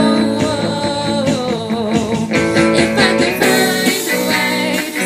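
Pop-rock song played by a band, led by strummed guitar, which turns into a steady rhythmic strum about two seconds in.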